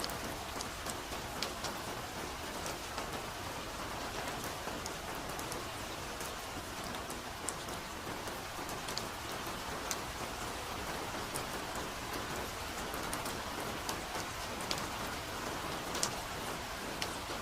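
Steady soft rain falling, an even hiss with many scattered sharp drips of individual drops landing on surfaces close by.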